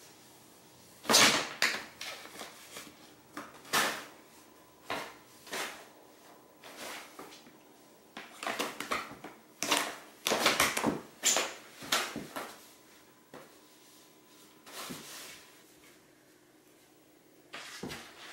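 Cat scrambling and batting inside a fabric pop-up play tunnel: irregular bursts of rustling and thumping fabric, busiest about a second in and again around the middle.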